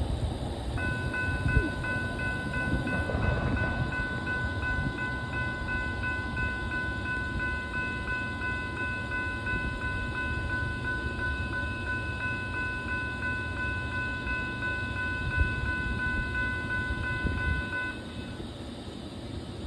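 Railroad grade-crossing bell ringing with a steady, repeated ding, starting about a second in and stopping near the end, over a low rumble. The bell signals that the crossing is activating for an approaching train.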